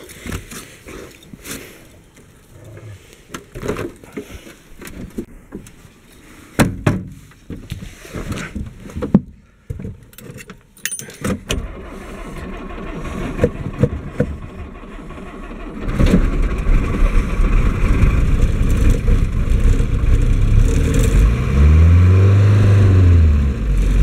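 Snow being brushed and knocked off a car, with a few sharp knocks, then the 1960 Mercedes-Benz 190D diesel engine cranks, fires about two-thirds of the way in and keeps running. Near the end it is revved up and back down twice.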